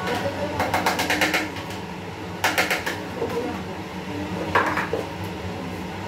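Rapid clatter of cutlery scraping and tapping on a plate, two quick runs of clicks with a single clink a little later, over a steady low hum.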